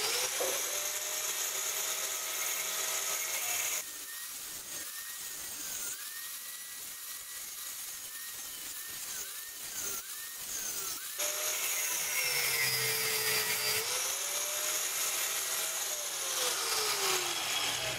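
Angle grinder with a thin cut-off disc cutting through the bolts that hold a bench vise jaw: a high motor whine over a grinding hiss, its pitch dipping and recovering again and again as the disc bites into the metal. It gets quieter about four seconds in and louder again around eleven seconds.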